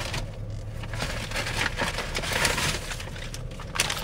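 Tissue paper rustling and crinkling as it is handled around a wrapped ceramic birdhouse, a dense irregular crackle that picks up about a second in.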